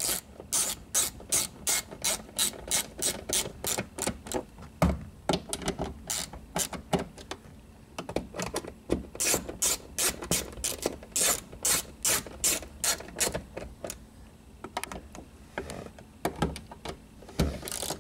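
Hand socket ratchet clicking in quick runs, about four clicks a second, as small bolts are snugged up, with short pauses between runs.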